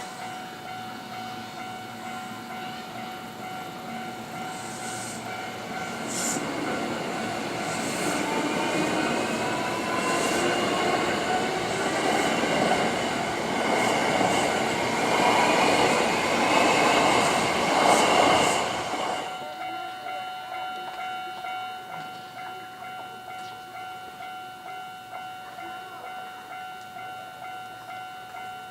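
A Japanese railroad crossing warning bell rings with a steady repeating ding throughout. An electric commuter train passes over the crossing: its noise builds for over ten seconds, with a motor whine rising in pitch and a few sharp wheel clacks, then cuts off abruptly about two-thirds of the way in, leaving the bell ringing on.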